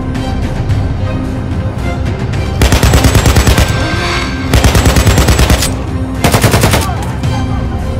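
Three bursts of automatic rifle fire, about ten shots a second, the last one shortest, over background music.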